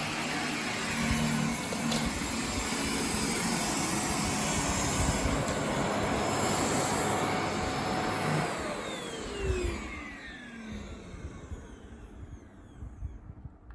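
Xiaomi Mijia wired dust mite vacuum cleaner running with a steady whine, then switched off about eight seconds in, its motor winding down with a falling whine as the noise fades out.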